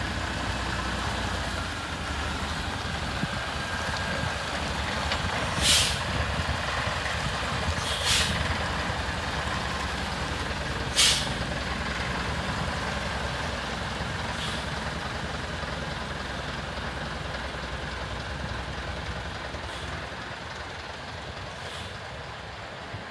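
Scania SBA 111 truck's six-cylinder turbodiesel running steadily as the truck moves slowly. Its air brakes give three sharp short hisses in the first half and fainter ones later. The engine grows fainter toward the end.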